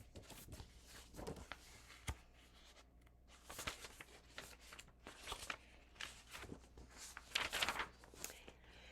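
Paper rustling and crackling as a picture book is opened and its pages handled, with irregular short rustles, a sharp click about two seconds in and a louder stretch of rustling near the end.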